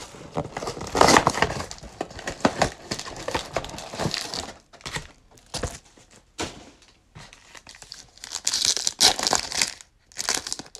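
Foil trading card packs crinkling as they are handled, and one being torn open near the end, with the rustle of the cardboard box they come out of. Irregular crackles and sharp little snaps, with the loudest stretches about a second in and again around nine seconds.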